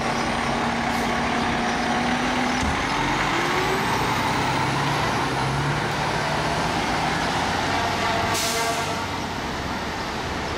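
Fire truck's diesel engine running close by. Its note rises about two and a half seconds in as the truck pulls forward, and a short hiss of air brakes comes about eight seconds in.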